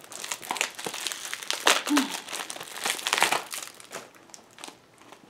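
Clear plastic bags crinkling and rustling as they are handled and opened, dying down near the end.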